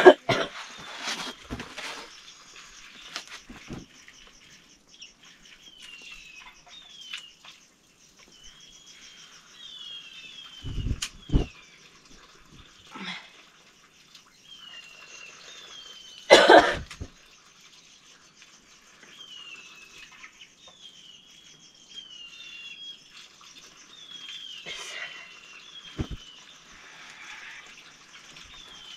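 A bird calling again and again in short falling chirps over a steady high-pitched buzz. One loud, sudden sound cuts in about halfway through, with a couple of low thumps a little before it.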